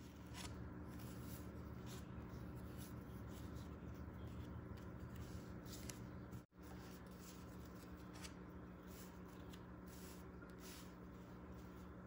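Faint indoor room tone: a steady low hum with scattered soft rustles and clicks, cutting out for an instant about halfway through.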